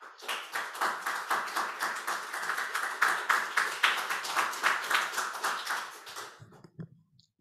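Audience applauding, with individual claps audible, for about six seconds before dying away.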